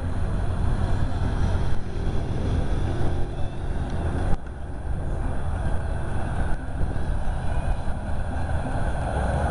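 Steady low wind rumble on an outdoor handheld camera microphone, over open-air roadside ambience with faint distant voices.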